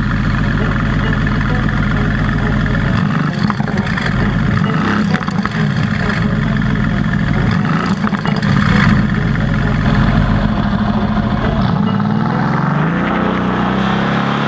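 Mercedes-AMG GT S's twin-turbo V8 running loud through its exhaust, revved up and back down a few times, with the pitch climbing near the end.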